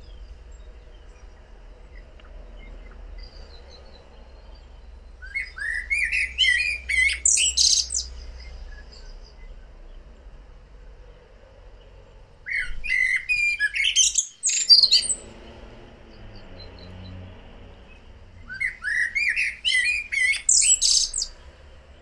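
Eurasian blackbird singing: three song phrases a few seconds apart, each starting with lower warbling notes and ending in a high twitter.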